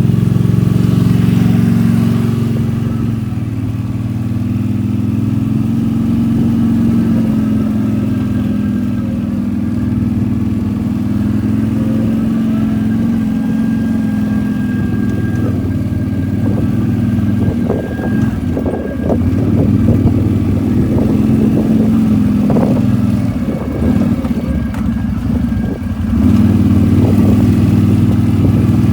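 ATV engine running steadily while riding, with a stretch of knocks and clatter past the middle.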